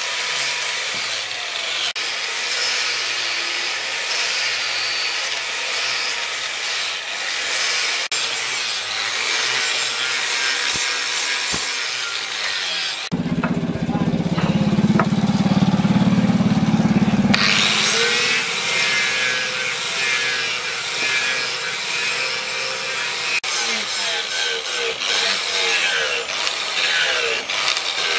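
Electric angle grinder with an abrasive disc running and grinding, a steady rough hiss with a high whine, first sanding the rubber-wrapped handle of a cleaver and later grinding the steel blade. About thirteen seconds in, the hiss stops for about four seconds and a louder low rumble takes its place, before the grinding starts again.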